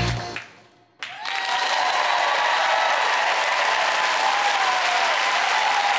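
Music cuts off and fades away, dipping almost to silence about a second in. Then a large audience starts applauding, steady and full.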